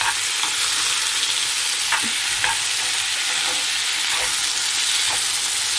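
Chopped tomatoes, shallots, garlic and dried chillies sizzling in hot olive oil in a nonstick frying pan, a steady hiss, stirred with a wooden spoon that knocks lightly against the pan a few times.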